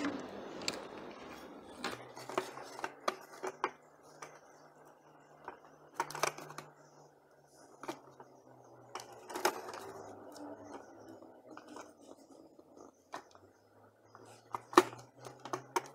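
Scattered light clicks and short scrapes of a small blade working on thin electrical wires and the plastic housing of a hand mixer, as the insulation is stripped from the wire ends.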